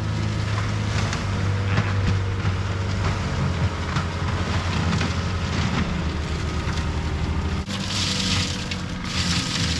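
CAT 259D3 skid steer's diesel engine running under load with the Gyrotrac mulching head, with a steady low hum and a crackling, crushing noise over it. About three-quarters of the way through the engine note drops, followed by two short bursts of hiss.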